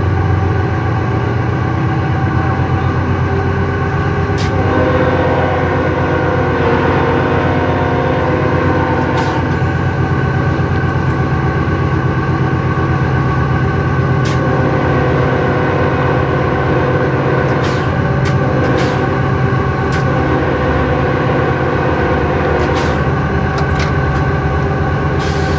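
Cab noise of a moving diesel freight locomotive: a steady engine drone with a few sharp clicks and rattles scattered through.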